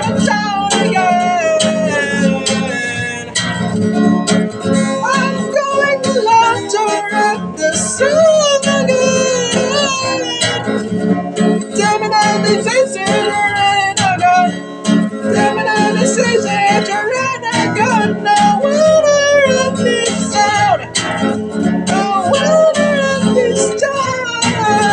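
Acoustic guitar strummed steadily with a man singing over it.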